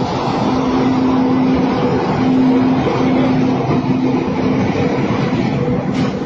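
Passenger train moving past close by: a steady rushing rumble with a low hum that breaks off and comes back. Water sprays from a leaking pipe beside the track.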